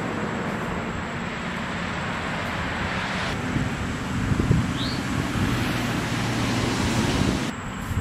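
Steady rushing noise with a low hum underneath that cuts off abruptly near the end, and a single short high chirp about halfway through.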